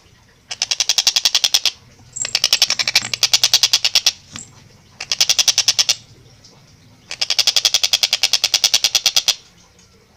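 A tengkek buto kingfisher giving its loud, fast rattling call: four bursts of sharp notes at about a dozen a second, each lasting one to two seconds, with short pauses between.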